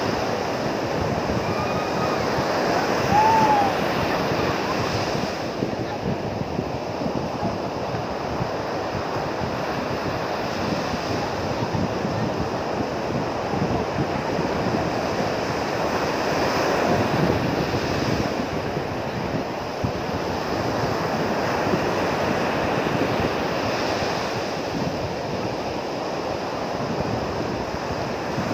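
Ocean waves breaking and washing up on a sandy beach, a steady rushing surf that swells and eases. About three seconds in, a brief high call.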